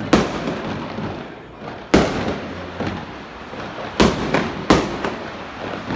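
Fireworks going off: loud sharp bangs right at the start, about two seconds in, and twice close together about four seconds in, with smaller pops between and a rumbling crackle trailing after each.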